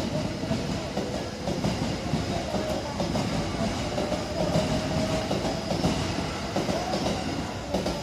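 Tobu Skytree Line train running past a level crossing, its wheels clattering over the rail joints, with a steady tone held throughout.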